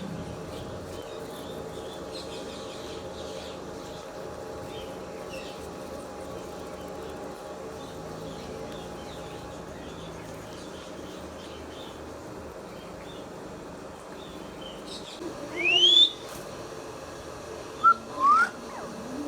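Indian ringneck parrot whistling: one loud sharply rising whistle about two-thirds of the way in, then two short rising whistles near the end, over faint chirps and a steady low background.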